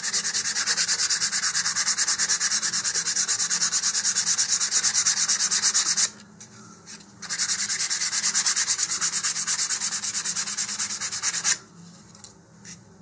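120-grit sandpaper rubbed by hand over a plastic model-rocket nose cone, taken by the builder to be probably polyethylene, in rapid, even back-and-forth strokes. The sanding scuffs the surface so paint will adhere. It pauses for about a second midway, resumes, and stops a little before the end.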